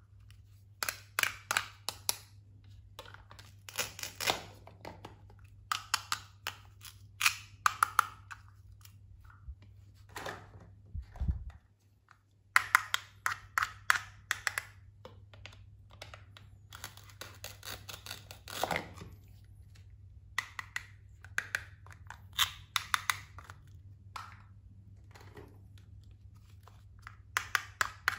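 Plastic toy fruits and vegetables being cut apart with a plastic toy knife on a plastic cutting board: clusters of sharp clicks, taps and short scraping rasps as the knife slides through and the pieces are separated and set down.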